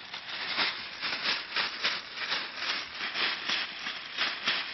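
Thin plastic shopping bag being handled, crinkling and rustling in quick repeated bursts, about three a second.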